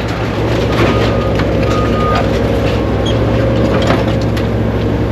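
Heavy equipment's engine running steadily, with scattered metal clanks and knocks from debris being worked.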